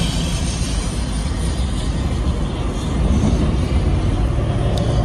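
Steady rumble of background traffic, with the drone of an aircraft engine.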